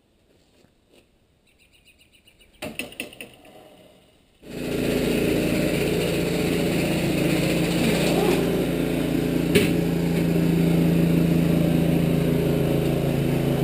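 Faint clinks and a short burst of rattling knocks, then about four and a half seconds in a motor or engine starts up suddenly and runs loud and steady, with one sharp click partway through.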